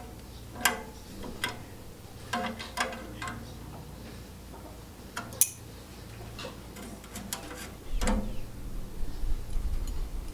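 Scattered light metallic clicks and clinks of tools and fuel-line fittings being handled at a tractor carburetor while an inline fuel filter is fitted. A low rumble starts near the end.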